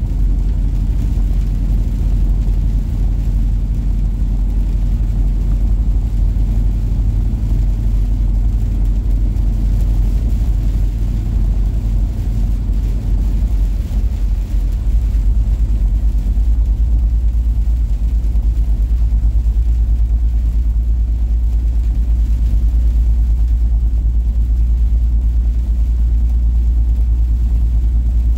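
Steady low rumble of a semi-truck's engine and road noise inside the cab, getting a little louder about halfway through.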